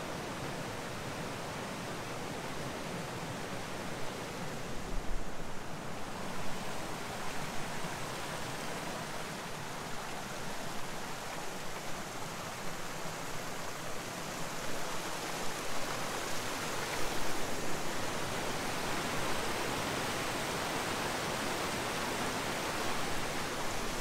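Stream water rushing over rocks and down a small waterfall cascade: a steady, even rush of water that swells a little at times.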